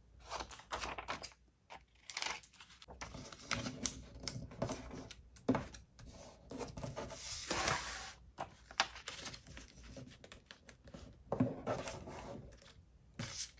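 A vellum sheet being worked by hand: scissor snips, then folding and creasing into a pocket, and the paper pressed and slid against the page. A run of small clicks and rustles, with a longer rustle about halfway through.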